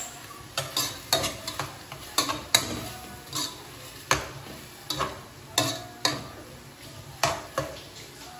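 Metal spoon stirring beef and onions in a steel pot, knocking and scraping against the pot at irregular strokes, about two a second.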